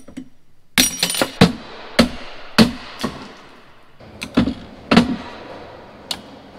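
Steel parts of an auger slip clutch clanking and knocking against a bench vise and each other as the clutch is taken apart: a quick run of sharp metallic clanks, some ringing briefly, then a second cluster a little later and one last knock near the end.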